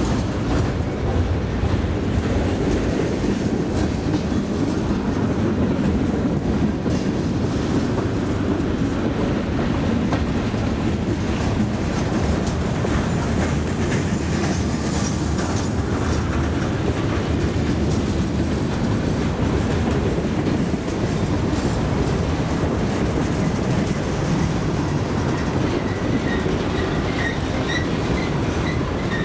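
Mixed freight train cars rolling past close by: a steady rumble and clatter of steel wheels on the rails.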